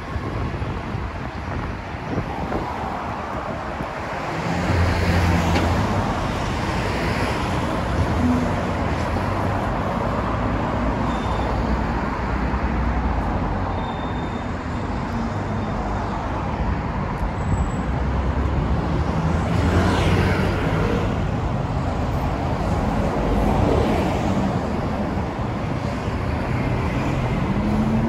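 City street traffic: cars and scooters passing on the road, a steady wash of engine and tyre noise. A low engine rumble comes up about four seconds in and swells as vehicles go by.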